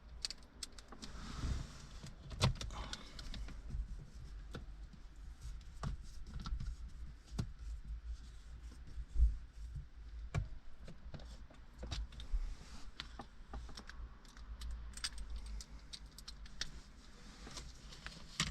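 Irregular small clicks, knocks and rattles of hand work on plastic car interior trim: screws being driven in and console trim pieces handled as the console goes back together.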